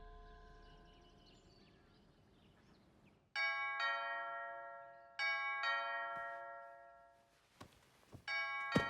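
A two-note ding-dong doorbell chime, rung three times in quick succession, each chime ringing out and fading. A short sharp knock lands near the end.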